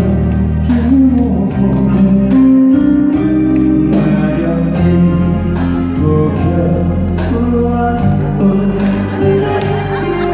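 A song performed live by a band with a steady drum beat, guitar and a singer's voice.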